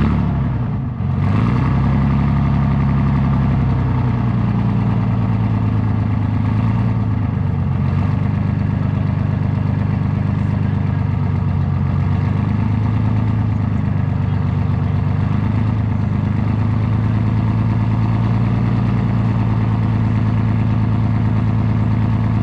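Abbot FV433 self-propelled gun's Rolls-Royce K60 multi-fuel engine running steadily, shifting pitch slightly about a second in and again around eight seconds in.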